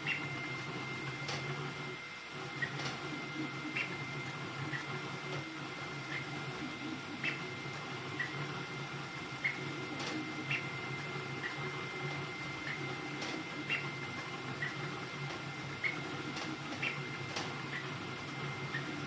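Ender-3 V3 3D printer running a high-speed print: a steady hum with a thin high whine, broken about once a second by short chirps and clicks as the print head changes direction.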